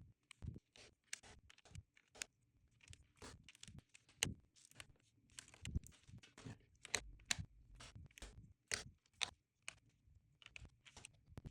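Mechanical keyboard switches being pressed one after another into the plate and circuit board, a run of small, sharp clicks and snaps at irregular intervals, a few each second, with light handling noise between them.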